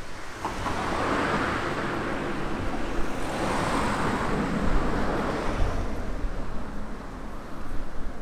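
A road vehicle passing close by: a rush of tyre and engine noise that builds, swells twice and fades away over about six seconds.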